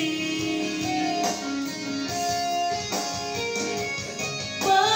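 Instrumental break in a karaoke backing track: a keyboard-played melody in a plucked-guitar voice, with a few held notes over the accompaniment and no singing.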